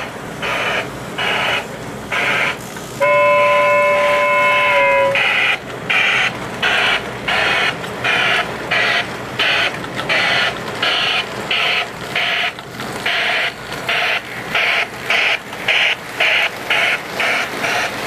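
Lionel Wabash Pacific 4-6-2 O-gauge steam locomotive running with its "Mighty Sound of Steam" electronic sound, giving a steady rhythm of chuffs about twice a second over the rumble of its wheels on three-rail track. About three seconds in, its electronic steam whistle sounds a held chord for about two seconds.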